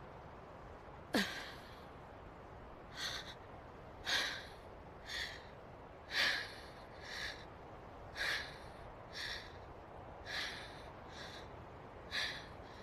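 Anime sound effects of a character biting his thumb and blowing air into it to pump himself up: a sharp click with a quick falling tone about a second in, then a run of short breathy puffs, roughly one a second.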